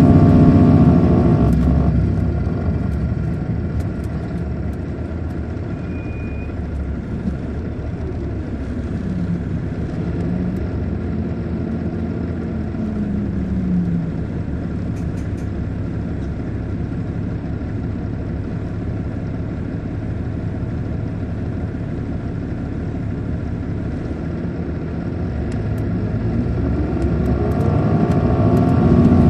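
Caterpillar C13 diesel engine of an MCI D4500CL coach. It winds down at the start, then the coach runs along more quietly with road noise through the middle. Near the end the engine pulls up again in rising pitch as the coach accelerates.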